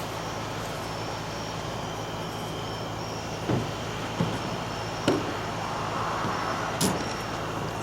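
Electric drill turning a hole saw into steel tubing: a steady hum with a few sharp knocks along the way.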